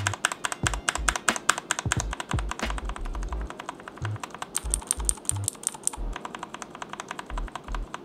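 Typing on a Keychron K4 V2 mechanical keyboard fitted with Gateron Green clicky switches: a fast, continuous run of sharp key clicks.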